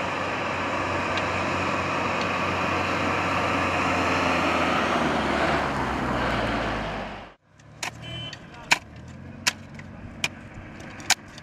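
Road traffic, with a car passing close by and its rumble swelling about six seconds in before it cuts off abruptly. Then a shovel strikes dry soil in about five sharp chops, a little under a second apart.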